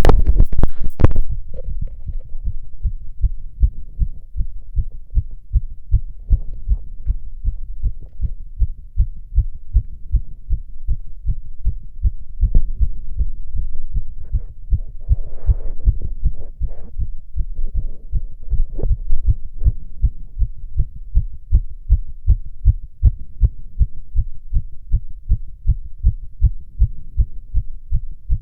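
A man's own heartbeat heard by chest auscultation: fast, evenly spaced low thumps. The heart rate is fast but otherwise normal. A loud scraping noise fills the first second or so before the beats come through clearly.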